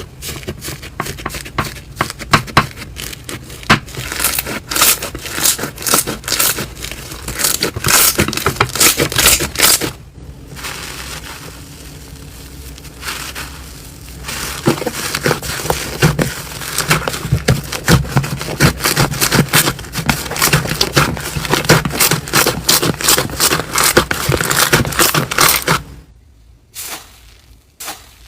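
Slime being squeezed and pressed by hand, with dense crackling, crunching clicks. It goes quieter and softer for a few seconds in the middle, then drops to a few faint clicks near the end.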